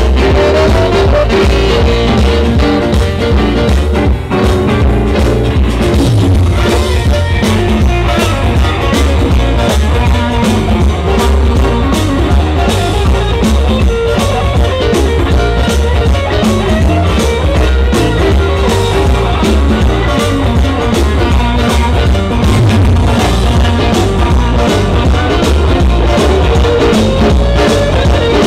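Music with a steady beat throughout.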